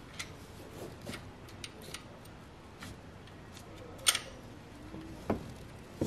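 Scattered light metallic clicks and taps of a timing chain and hand tools being worked on an engine's camshaft sprocket, with one sharp click about four seconds in and a duller knock a second later.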